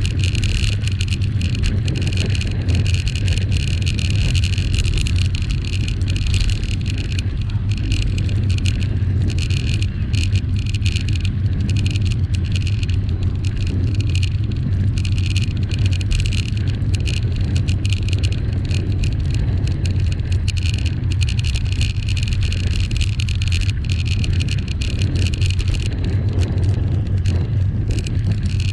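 Steady wind rumble and road noise on a bicycle-mounted camera's microphone while riding, a deep even rumble with a constant hiss above it.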